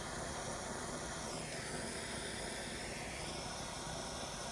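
Gas soldering torch flame burning steadily with an even rushing hiss as it heats the brass tray for soft soldering; the tone of the rush dips lower for a couple of seconds in the middle.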